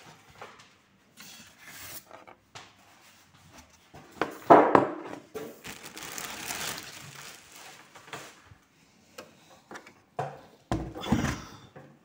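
Clear plastic bag crinkling and rustling around a sewing machine as it is handled in its cardboard box and foam packing, loudest about four to eight seconds in, with a few dull knocks near the end.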